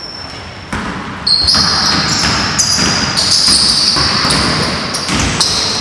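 A basketball is being dribbled on a hardwood gym floor, with repeated sharp bounces. From about a second in, sneaker soles squeal on the court, changing pitch as the players cut and stop.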